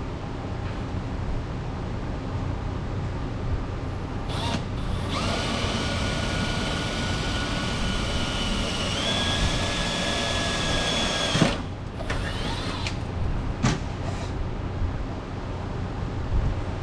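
Cordless drill running for about six seconds, boring a rivet hole in the car's underbody. Its whine steps up in pitch partway through, then cuts off suddenly. A couple of short clicks follow, over a steady background hiss.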